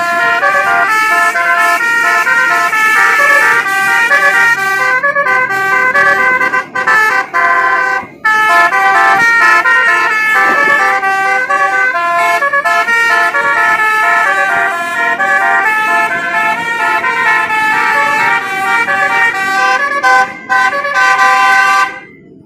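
Telolet bus horn, a multi-tone musical air horn, playing a quick tune: several notes sound together and change pitch several times a second, with a few short breaks. It cuts off suddenly near the end.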